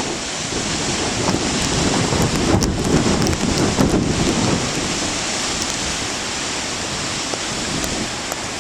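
Strong wind and rain on the microphone over heavy surf. The rushing noise swells about two to four seconds in as a wave breaks, with scattered small ticks of raindrops.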